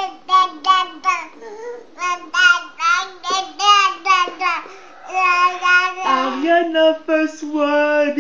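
Baby babbling loudly in a sing-song voice: a run of short, high-pitched syllables, two or three a second, with a couple of longer held notes.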